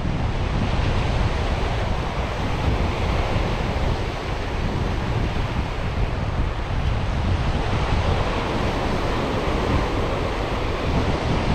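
Small waves breaking and washing over a rocky reef shore, a steady surf wash, with wind buffeting the microphone and adding a low rumble.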